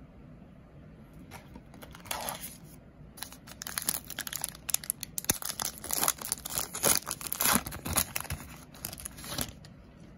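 A 2009 Upper Deck Goudey baseball card pack's wrapper being torn open and crinkled by hand: a short rip about a second and a half in, then several seconds of dense tearing and crinkling that stops shortly before the end.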